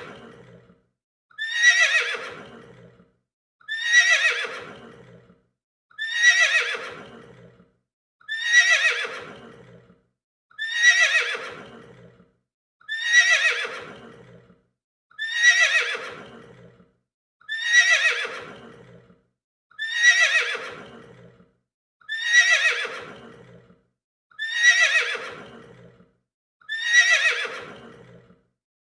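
A horse whinnying, the same neigh sound effect looped over and over about every two seconds, identical each time. Each whinny starts high and shrill, then falls in pitch and trails off lower.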